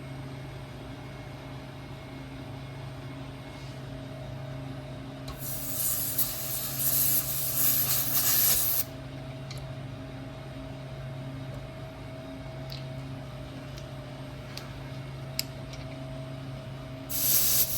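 Two loud bursts of hissing, like gas or spray escaping under pressure: the first lasts about three and a half seconds from about five seconds in, the second about a second near the end. A steady low machine hum runs underneath.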